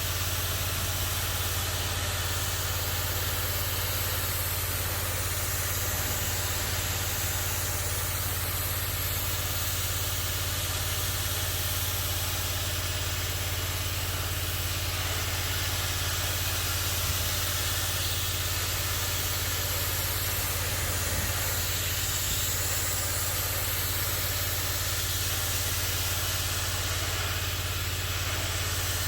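Pressure washer running steadily: a constant engine hum under the hiss of the water jet spraying onto a table top.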